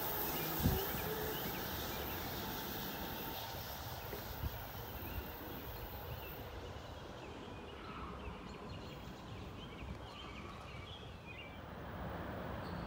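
Faint hiss and rumble of a departing NJ Transit train fading down the line, the hiss dying away about six seconds in, with a few soft knocks over low background noise.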